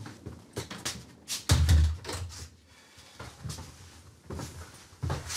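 Knocks, scuffs and footsteps of people moving through a doorway into a small room, with a heavy low thud about a second and a half in.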